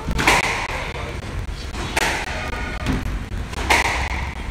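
Squash rally: three sharp smacks of the ball off the rackets and the court walls, spaced about a second and a half to two seconds apart, each ringing briefly.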